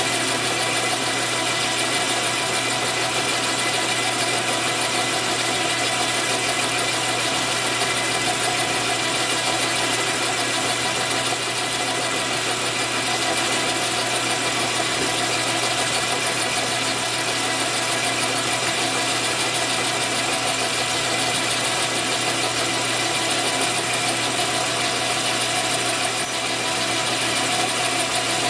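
Metal lathe running steadily while taking a very light cut on a part in its chuck: an even mechanical whir with several steady tones from the headstock gearing.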